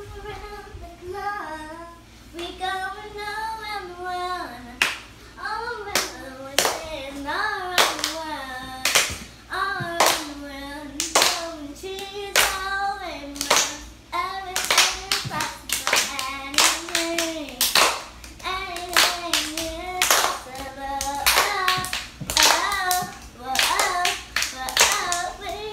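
A young girl singing a song, with hand claps keeping the beat from about five seconds in, coming faster in the second half.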